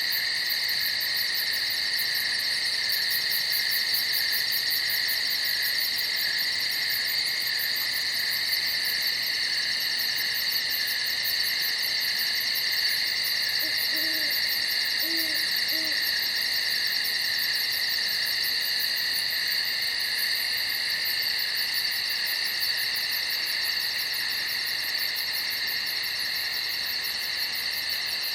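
Night chorus of crickets trilling steadily without a break, several high-pitched tones layered together. About halfway through, three short low hoots sound faintly beneath it.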